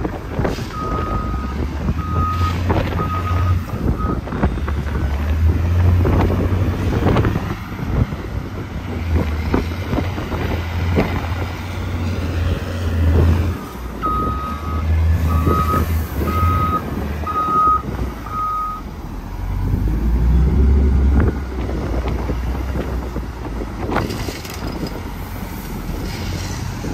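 Heavy diesel vehicle engine running under varying load while its reversing alarm beeps in two runs: about four beeps near the start and five or six about halfway through, a little over one beep a second. A few sharp knocks stand out over the engine.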